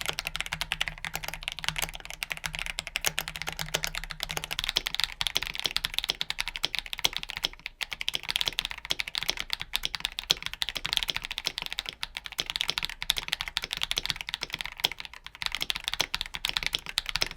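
Continuous fast typing on a mechanical keyboard fitted with Akko linear switches: a dense stream of keystrokes, several a second.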